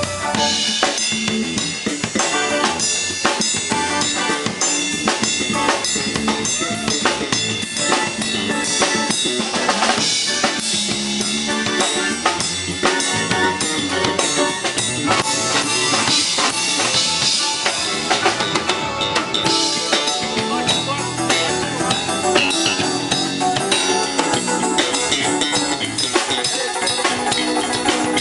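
Band music with a drum kit keeping a steady beat and an electric bass playing along.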